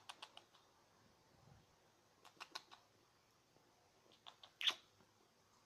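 Faint clicks and small squeaks from a pet lory right at the microphone, in three short clusters, the loudest about three-quarters of the way through.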